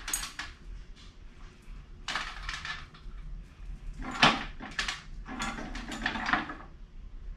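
Rustling and light clattering of a tangled string of wire fairy lights being handled and pulled apart, with a sharper clack about four seconds in.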